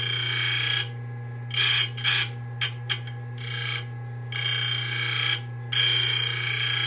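Simington 451c chain grinder running with a steady motor hum. Its grinding stone is being dressed: a series of high-pitched grinding passes, each under a second long, with a few short ticks in between.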